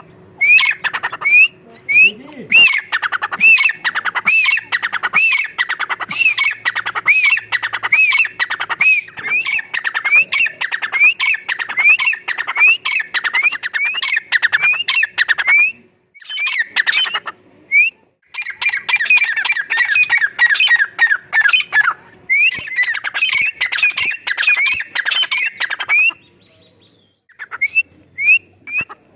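Francolin (teetar) calling: a long, loud series of harsh repeated calls, each with a rising note, about two a second. It breaks off twice briefly past the middle, then thins to a few scattered notes near the end.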